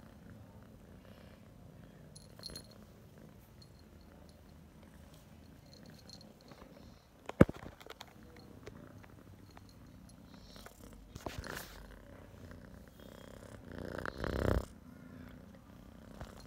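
Domestic cat purring steadily, close to the microphone. A sharp knock comes about seven seconds in, and rustling handling noise comes near the end.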